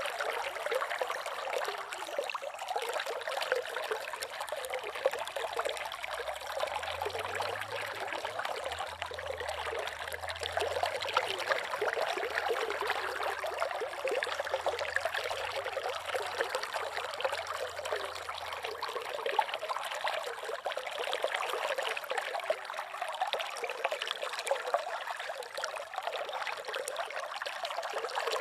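Slow river water trickling and babbling in a steady, continuous murmur, with a faint low hum in the middle.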